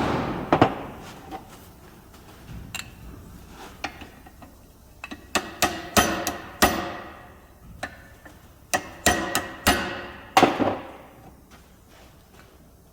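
Hammer tapping a tight pin into a Holden HZ steel door hinge, metal on metal with a short ringing after each blow. A few scattered taps, then two bunches of about five quick strikes, about five and nine seconds in.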